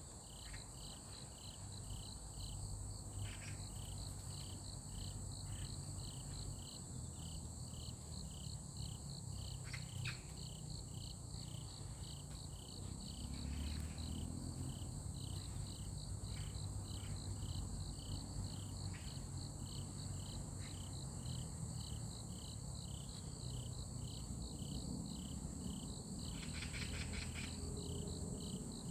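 Insects chirping: a steady high drone with a short chirp repeated evenly about twice a second, and a denser stretch of chirping near the end, over a low background rumble.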